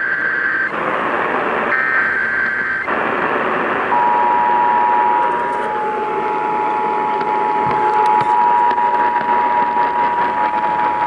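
Emergency Alert System SAME header: two harsh digital data bursts about a second long each. About four seconds in, the two-tone EAS attention signal (853 Hz and 960 Hz together) starts and holds steady. A constant radio hiss runs underneath.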